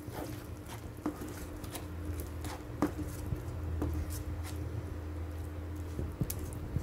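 Slotted spatula stirring a thick ground onion-tomato masala paste in a non-stick pan, with soft squelching and a few light taps against the pan, over a steady low hum.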